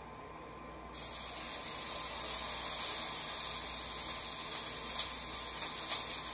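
Sandwich bread sizzling in a hot cast iron skillet: the hiss starts suddenly about a second in as the sandwich goes into the pan and keeps on steadily, with a few faint clicks from handling it in the pan.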